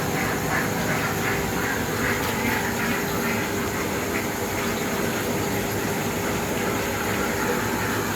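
Milling machine running continuously with a steady rushing noise and a faint constant hum, plus a rhythmic pulsing about twice a second that fades out about three seconds in.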